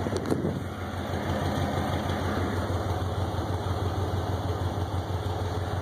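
1964 Ford Fairlane's engine idling steadily, its exhaust leaking, with an even rushing hiss over the low pulsing hum.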